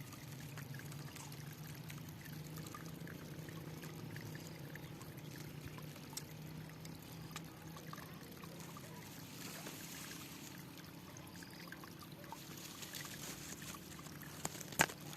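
Water trickling and flowing steadily, like a small stream. A sharp click sounds near the end.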